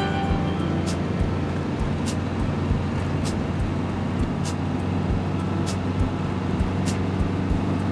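Fiat Ducato-based motorhome driving, heard from inside the cab: a steady low engine hum with road noise, and sharp clicks or knocks about every second.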